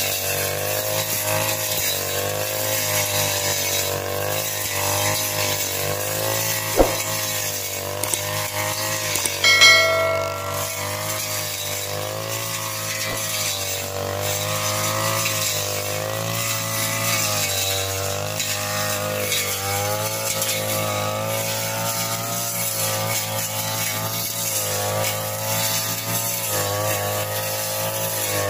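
Backpack brush cutter's small petrol engine running hard while cutting weeds, its speed wavering up and down as the cutting head swings through the growth. A brief ringing strike stands out about ten seconds in.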